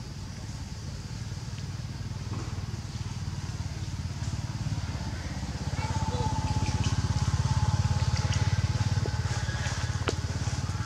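An engine running with a low, rapid pulse, growing louder over the first eight seconds as it draws nearer, then holding steady. A thin steady high tone joins about halfway through.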